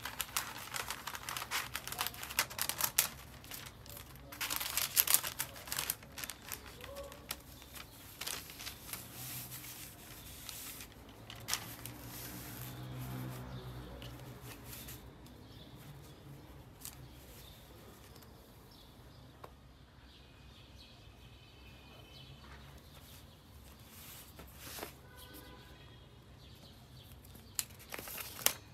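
Paper wrapping crinkling and rustling as hands open it inside a gift box and lift out a scarf. The crinkling is loudest over the first few seconds and again about five seconds in, then thins to soft, scattered rustles, with another brief paper rustle near the end.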